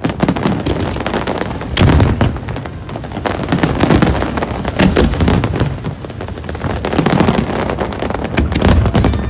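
Aerial fireworks shells bursting in a dense, continuous barrage: many rapid sharp bangs, with deeper booms about once a second.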